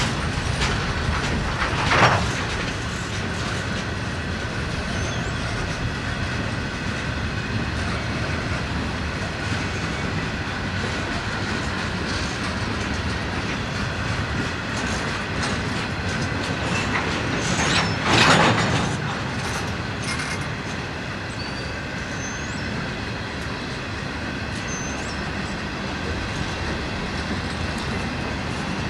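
Freight train cars rolling past: a steady rumble with wheels clattering over the rail joints, and two sharp metallic clanks, one about two seconds in and a louder, longer one near the eighteen-second mark.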